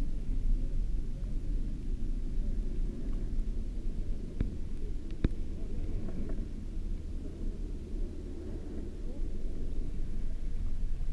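Muffled low rumble of moving water, recorded underwater by a GoPro Hero 4 inside its sealed waterproof housing, with a few sharp clicks about four and five seconds in.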